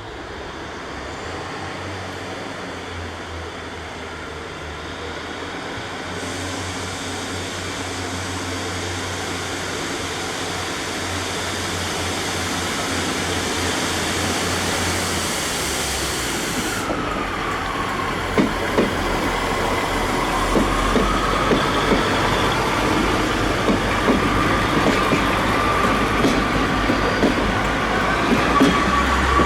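Class 143 Pacer diesel railbus approaching, its engine drone growing steadily louder. From about halfway a wheel squeal bends down and then holds, while the wheels click rapidly over the rail joints.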